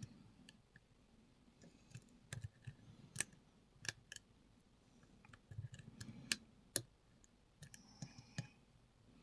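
Irregular small metallic clicks and ticks of a lock pick and tension wrench working the pin stack inside a Lockwood 334B45 padlock's keyway, as pins are lifted and set under very light tension.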